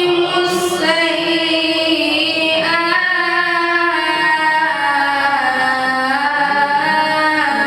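A man's voice in melodic Quranic recitation, one long unbroken drawn-out phrase, with held notes that turn slowly up and down in pitch.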